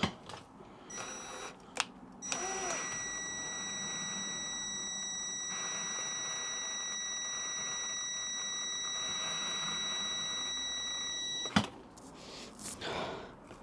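Electric drill driving a hand tap slowly to cut a thread. Starts about two seconds in and runs at a steady speed with a high, even whine for about nine seconds, then stops abruptly with a click near the end. The owner calls the drill underpowered for the job.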